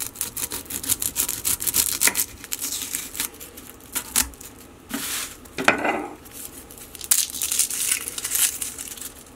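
Knife cutting the top off a garlic bulb on a wooden cutting board, then the bulb's dry papery skin crackling and tearing as it is peeled off by hand, with a few knocks on the board.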